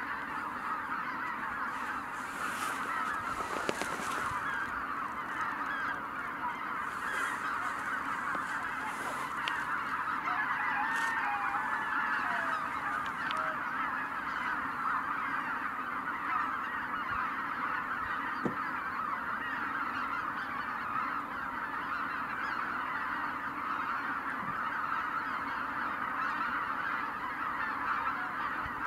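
A large roosting flock of greater white-fronted geese calling together on the water: a dense, unbroken chorus of many overlapping honks.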